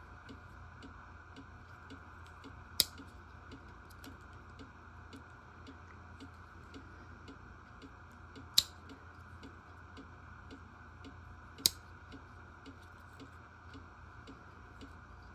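Three sharp metallic clicks, a few seconds apart, as the blades of a Schrade Old Timer three-blade slip-joint pocketknife are snapped shut. Under them runs a faint, even ticking about twice a second.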